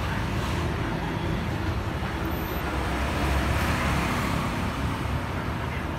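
Steady low rumble of road traffic in the background, a little louder around the middle.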